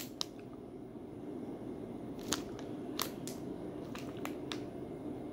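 Clear plastic wrapper on a dried duck leg snack being handled: a handful of sharp, separate crackles and clicks over a low steady hum.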